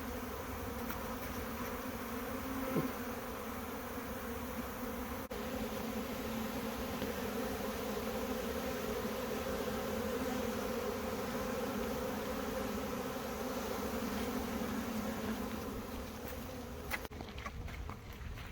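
Honey bee swarm buzzing: a steady hum of many bees in flight, which fades near the end.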